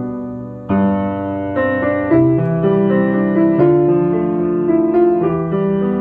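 Piano playing a song accompaniment, a melody over a broken-chord left hand, with a fresh chord struck every second or so through a progression that includes D minor, D7, G7 and A7.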